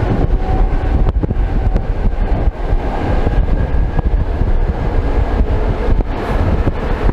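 Old electric suburban train running along the line, heard through an open, glassless window: the wheels clatter on the rails over a steady rush of wind and running noise.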